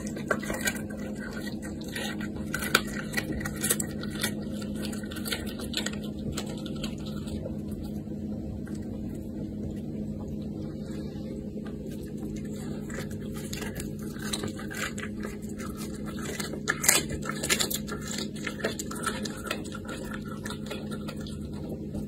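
Caracal chewing and tearing raw chicken: irregular wet crunches and clicks, bunched near the start and again about three-quarters through, over a steady low hum.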